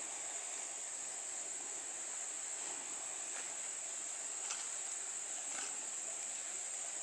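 Steady high-pitched chorus of insects droning without a break, with a few faint clicks in the second half.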